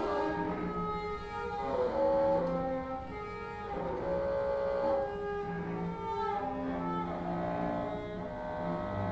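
Free-improvised music led by a bowed cello: long held notes, several at once, shifting in pitch every second or two.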